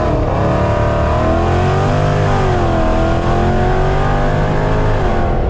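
Supercharged 5.7 Hemi V8 with long-tube headers and a cam, accelerating hard, heard from inside the car. The exhaust note climbs, dips in pitch about halfway, climbs again, then falls near the end.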